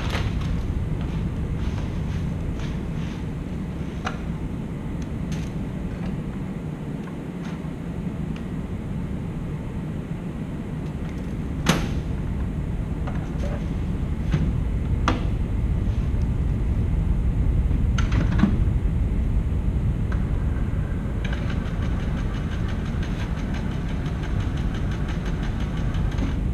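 Steady low machine hum with scattered clicks and knocks as a filament spool is unpacked and slotted into the material bay drawer of a Stratasys F123-series 3D printer. A steadier, higher-pitched sound joins about three quarters of the way through.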